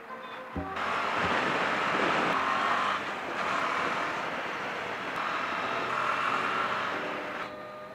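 Riding on a KTM 390 Adventure: a steady rush of wind over the microphone, with the single-cylinder engine and tyre noise underneath. It swells about a second in and eases briefly around three seconds and again near the end.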